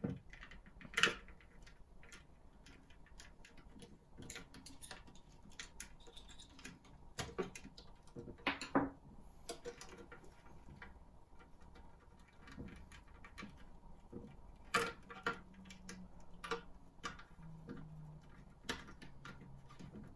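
Irregular, scattered clicks and taps of hard plastic model parts and their wiring being handled and fitted together by hand, faint throughout.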